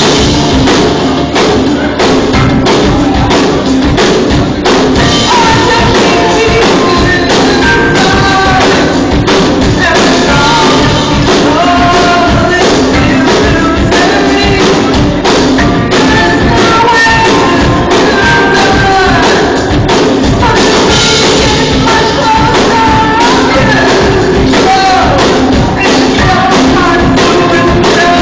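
Karaoke singing over a loud rock backing with a steady drum beat. The backing is on its own at first, and the voice comes in about five seconds in, carrying the melody to the end.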